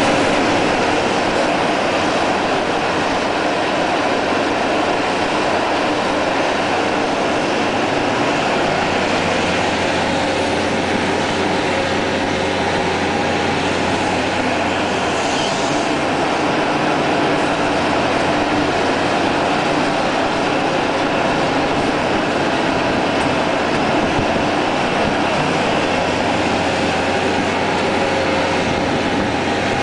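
Diesel engine and hydraulics of a SUNTON SE200 amphibious pontoon-track excavator running steadily as the machine swings and works its boom.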